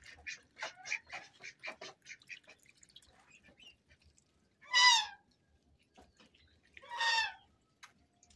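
Domestic geese and ducks calling: a run of short, quick calls in the first two seconds, then two loud single goose honks about two seconds apart.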